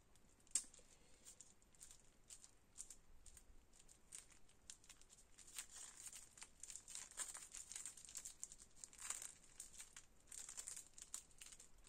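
Faint crinkling of a plastic sheet dabbed onto a card to spread diluted ink, as a scatter of small crackly ticks with one sharper click about half a second in.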